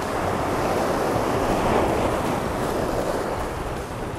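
Sea waves washing against the rocky shore, with wind on the microphone: a steady rushing that swells about two seconds in and eases near the end.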